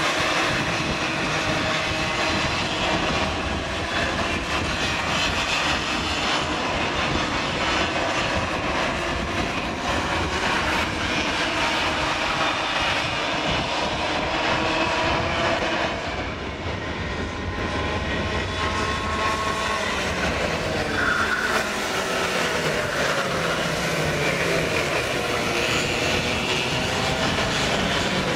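Several Raket junior karts' two-stroke engines racing past, their pitches rising and falling as they accelerate and lift off through the corners. The sound dips about sixteen seconds in, then builds again as the pack comes back on the throttle.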